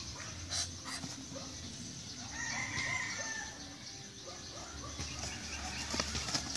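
Rooster giving a run of short, repeated calls about two seconds in, with a few more near the end, over the scuffling and wing flaps of a fight with a Muscovy duck.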